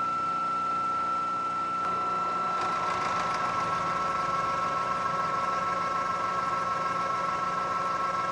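Bridgeport vertical milling machine running with a steady whine, its roughing end mill cutting into A2 tool steel at a slow feed. About two to three seconds in the cut bites harder, adding a second lower tone and a rough grinding noise that holds steady.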